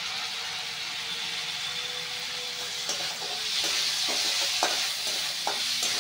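Vegetables sizzling in a hot steel kadhai with soy sauce just added, a spatula stirring and scraping against the pan. The sizzle grows louder about halfway through, and the spatula strokes come faster from then on.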